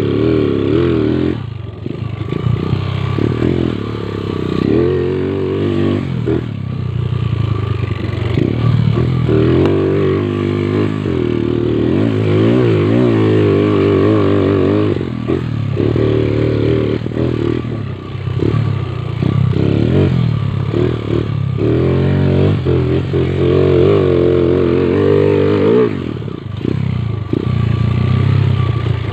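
Motorcycle engine being ridden hard, its pitch rising under throttle and dropping away again several times.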